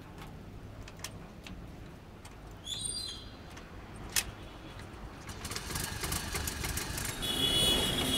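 Petrol scooter being started cold, with a few clicks and a short high squeal, then running and pulling away, getting louder from about five seconds in with wind and road noise.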